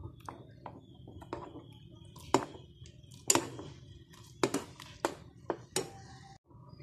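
Steel ladle stirring soaked china grass (agar) in water in a small saucepan, knocking against the pan with irregular sharp clicks about once a second, while the agar is melted over a low flame.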